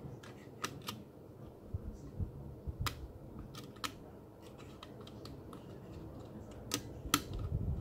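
Small, sharp, scattered clicks from the single-arm pantograph of a Roco H0 model of an ÖBB 1110 electric locomotive as fingers press it down and let it go. This tests whether its outward-bent catch hooks now hold it down.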